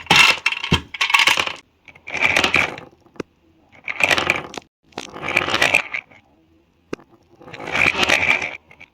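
Five bursts of rattling and clattering, like small hard pieces shaken in a container, with a few sharp clicks between them.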